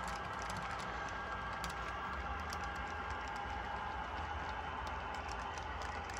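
Model freight train cars rolling past on the track: a steady rumble and hiss with rapid, irregular clicking of the wheels over the rails and rail joints.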